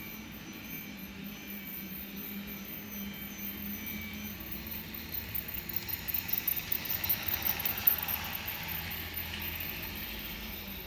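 RailKing O-gauge model steam train running on its track: a steady motor hum and wheel noise, growing louder about halfway through with quick clicking over the rail joints as it passes close, then easing off.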